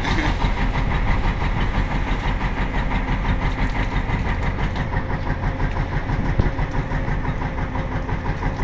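A fishing boat's engine running steadily, an even, rapid chugging.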